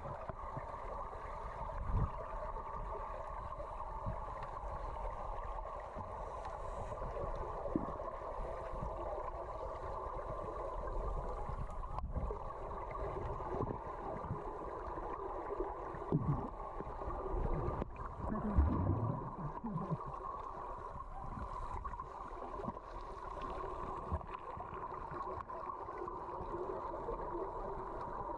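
Underwater sound picked up by a GoPro's microphone under water: a steady muffled rushing, with now and then a low gurgle or thud from scuba divers' exhaled bubbles. The loudest gurgle comes about two-thirds of the way through.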